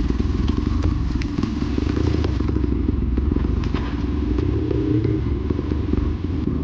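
Dirt bike engine running steadily while riding a rough trail, with scattered clattering knocks throughout.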